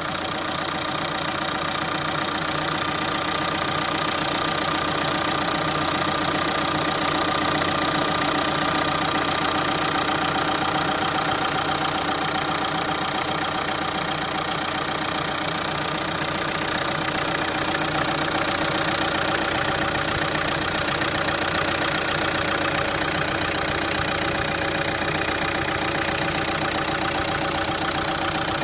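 Renault Captur's 1.5 dCi 90 four-cylinder common-rail turbodiesel idling steadily, heard close up in the engine bay: an even diesel injection tick that runs smooth and fairly quiet, from its newer injection system.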